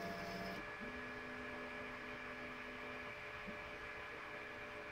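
Stepper motors of a Rat Rig 3D printer humming as the toolhead moves to probe the bed for Z-tilt levelling. It is a steady electric hum whose pitch changes as the moves change: a low tone stops about half a second in, and a slightly higher tone runs from about one to three seconds in.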